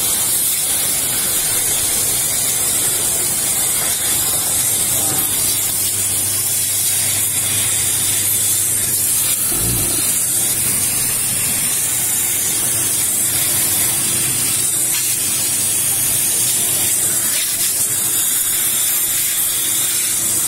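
Steam jet hissing steadily from the nozzle of a Scarpavapor steam shoe-cleaning machine as it is played over a shoe.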